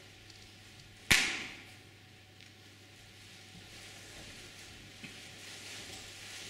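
One sharp, loud bang about a second in, ringing off briefly. After it comes a faint hiss of room noise that swells a little toward the end.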